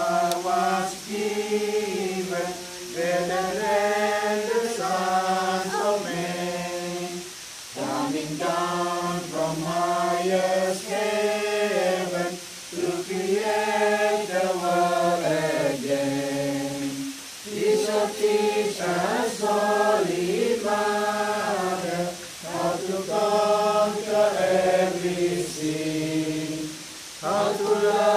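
A group of men and women singing a hymn together without accompaniment, in slow held phrases a few seconds long with short breaks for breath between them.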